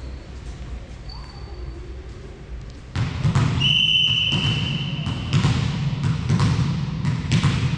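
A referee's whistle blown once in a sports hall and held for about a second and a half, with a burst of hall noise just before it. A volleyball then hits the floor with sharp bounces about once a second.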